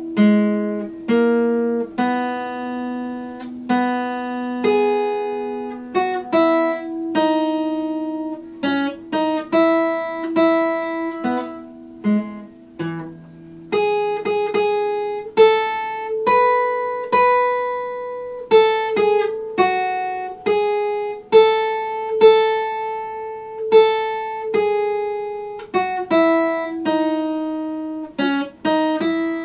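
Epiphone acoustic guitar played note by note: a slow melody of plucked single notes and chords, each ringing on and fading, over held bass notes.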